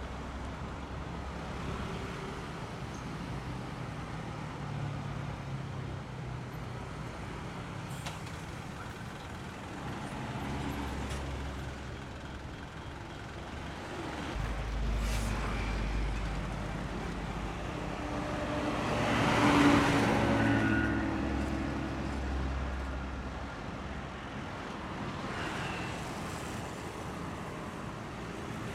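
Road traffic: diesel engines of buses and trucks running as they pass in slow traffic, with a louder vehicle passing close about two-thirds of the way through.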